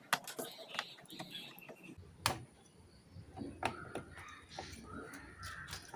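Scattered light clicks and taps of hand soldering work on a circuit board, the iron and a thin copper wire being worked along an SMD chip's legs to lift them off their pads. A faint steady high tone comes in about two seconds in.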